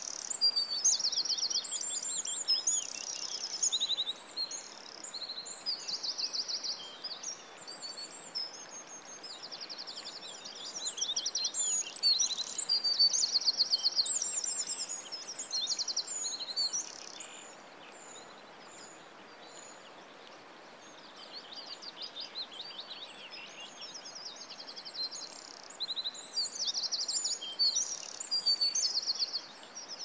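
Several songbirds singing and chirping, with many quick high trills and repeated notes over a steady background hiss. There is a lull in the singing a little past the middle.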